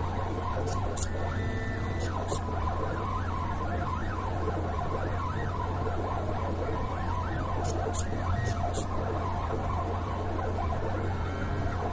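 NEMA 17 stepper motors of a GRBL-controlled pen plotter whining in quick rising and falling pitch glides as they drive the pen carriage around the paper, over a steady low hum. A few sharp ticks come as the SG90 micro servo lifts and lowers the pen.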